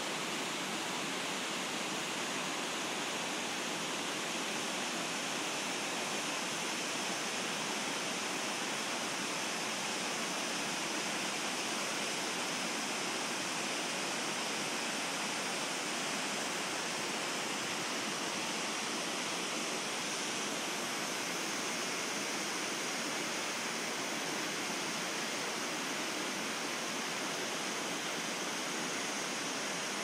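Shirahige Falls, a waterfall of many thin streams pouring from a cliff face into a river, giving a steady, even rush of falling water.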